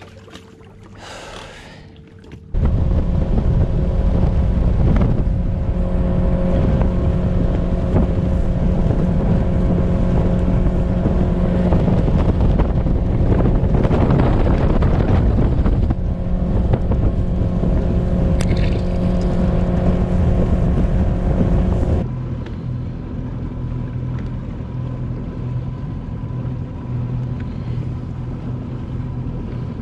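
Bass boat's outboard motor running under way, loud and steady, cutting in suddenly a couple of seconds in. About 22 seconds in it drops to a lower, quieter running speed as the boat slows.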